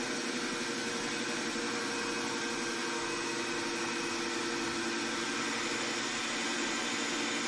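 Drill press running steadily as its bit is fed down through a steel plate, drilling one of a row of holes that will be filed into slots; an even motor hum with cutting noise over it.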